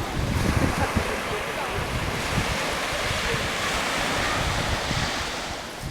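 Wind buffeting the microphone over the steady rush of sea surf.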